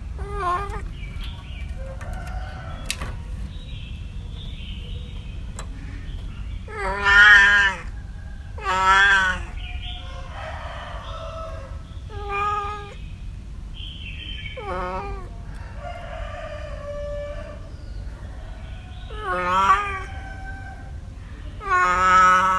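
A cat meowing again and again: about seven separate drawn-out meows a few seconds apart, the loudest ones near the middle and at the end.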